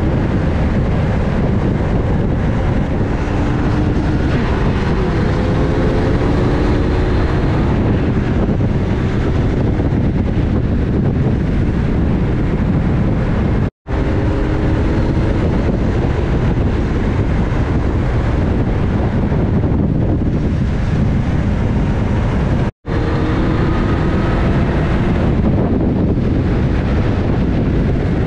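Motorcycle riding at road speed: steady wind rush on the microphone mixed with engine and road noise, with the engine note rising faintly a few times. The sound cuts out completely for an instant twice, once near the middle and once about two-thirds through.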